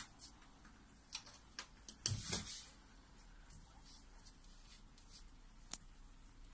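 Quiet room tone with a few scattered faint clicks and one short knock about two seconds in.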